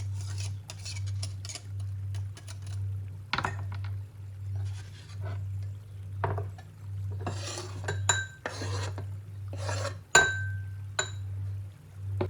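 Hard objects scraping and rubbing in repeated strokes, with three ringing clinks in the second half, the loudest a little after ten seconds in, over a low hum that swells about twice a second.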